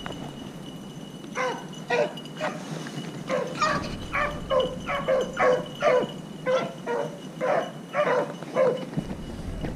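Beagles baying on a rabbit chase: a run of short, repeated bays, about two a second, starting about a second in and stopping near the end.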